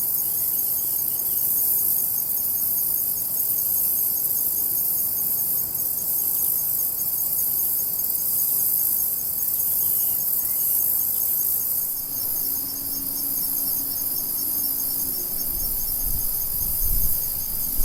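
Summer insect chorus: a steady, high-pitched shrill with rows of fast, even pulsing chirps. A low knock or two comes near the end.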